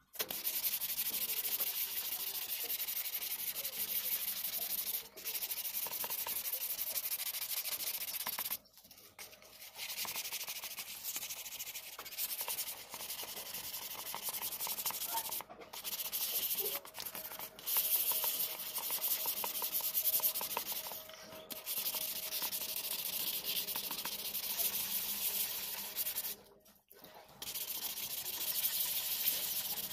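Hand wet-sanding of a motorcycle helmet shell: sandpaper scrubbed rapidly back and forth over the wet finish, a steady scratchy hiss. It stops for several short pauses, the longest about nine seconds in.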